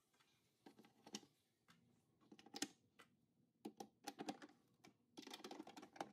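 Faint clicks and scraping of a hand screwdriver turning a screw into a cabinet panel, in short scattered bursts that grow denser near the end.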